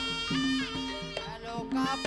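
Traditional Banyumas ebeg music: a sliding, bending melody line over a held low note and repeated drum strokes.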